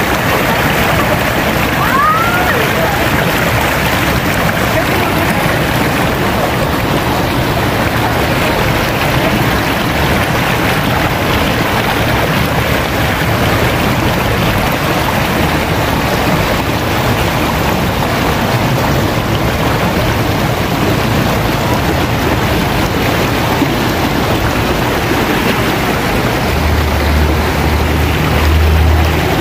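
Shallow, fast-flowing river rushing and churning over rocks, a steady loud rush of water.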